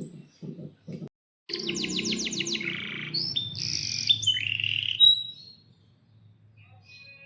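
Domestic canary singing: a fast trill of quick downward-sweeping notes, then a run of varied whistled notes, stopping a little past the middle. A low rhythmic pulsing, about five beats a second, fills the first second before an abrupt cut.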